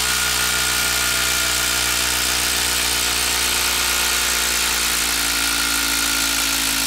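HILTI 12-volt brushless impact driver hammering steadily as it backs a long TimberLOK-type structural screw out of a wooden log, its rapid impacts blending into one unbroken buzz.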